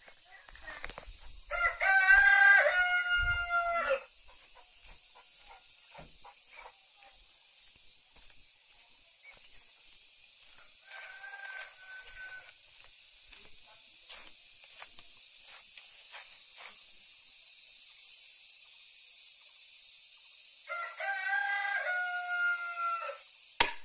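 A rooster crowing three times: loudly about two seconds in, faintly near the middle, and again near the end, over a steady high buzz of insects. A single sharp snap comes just before the end, the crossbow being loosed.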